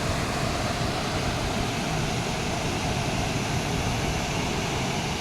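Waterfall: the steady, even rush of falling water, unbroken throughout.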